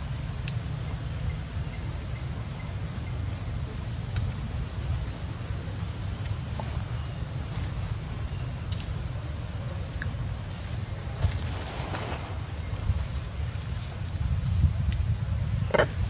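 Steady, high-pitched drone of insects, over a low, uneven rumble, with a few faint clicks and a sharper click near the end.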